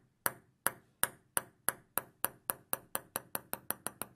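A table tennis ball dropped and bouncing on a hard surface: a run of sharp, high clicks that come quicker and quicker as the ball settles.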